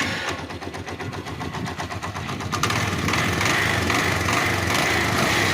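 Hero Honda Karizma R's 223 cc single-cylinder four-stroke engine running in neutral, getting louder about three seconds in. This is a worn 74,000 km engine that the mechanic says has lost its pickup and needs a full rebuild.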